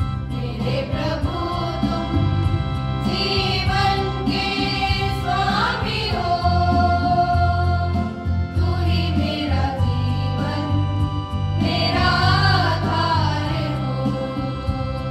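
A group of young women singing a Hindi hymn together through handheld microphones, over a sustained instrumental accompaniment whose held low notes change every few seconds.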